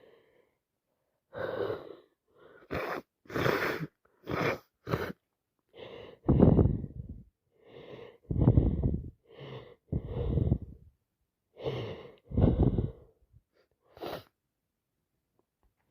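A woman with a wet head cold sneezing again and again, a quick in-breath before each of several sneezes, in a run of about a dozen bursts over some thirteen seconds.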